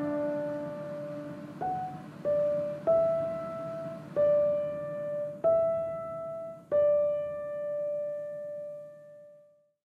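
Background piano music: a slow line of single notes, about six struck a second or so apart, each ringing out and fading, the last one dying away just before the end.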